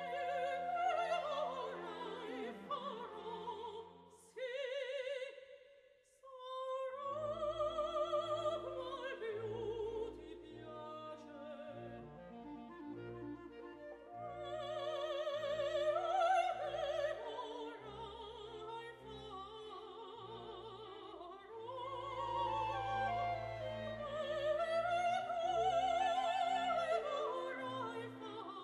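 Classical music: an operatic voice singing with strong vibrato over orchestral accompaniment, dropping to a brief lull about five seconds in before the music resumes with a bass line.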